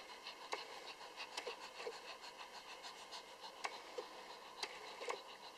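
Lhasa Apso mother dog panting rapidly, about six quick breaths a second, with a few sharp clicks over it.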